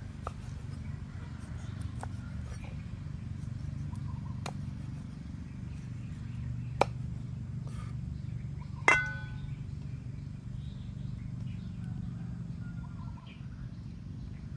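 Scattered sharp knocks of a cleaver chopping eel on a wooden board, a few seconds apart. About nine seconds in comes a loud metal clink that rings on briefly, over a steady low hum.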